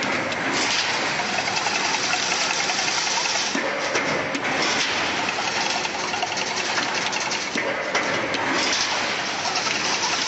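Single-wire fully automatic chain link fence machine running, a dense steady clatter of its wire-weaving mechanism with fine rapid ticking. The high rattle eases briefly about every four seconds as the weaving cycle turns.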